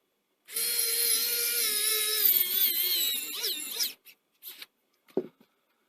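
Small electric screwdriver whining steadily as it drives a small screw into the laptop, running for about three and a half seconds and shifting in pitch as it stops. A light knock follows near the end.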